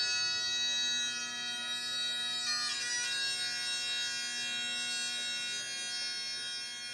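Bagpipes playing an instrumental folk passage: a steady drone held under the chanter's melody, which moves to new notes about two and a half seconds in.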